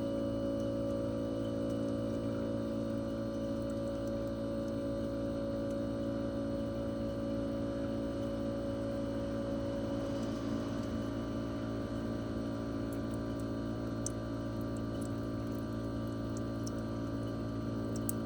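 Twin-rotary inverter compressor of a Toshiba RAS-4069AV air-conditioner outdoor unit running during a defrost cycle, with the fan stopped, so only the compressor is heard. It is a steady hum made of several held tones; one of the higher tones fades away about halfway through, and faint light ticks come in near the end.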